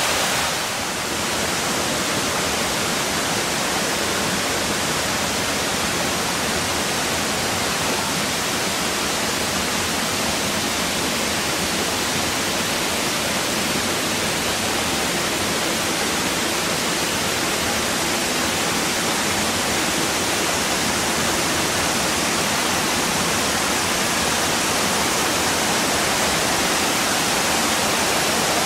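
Steady rushing of water from a small waterfall and stream, an even hiss that goes on without a break.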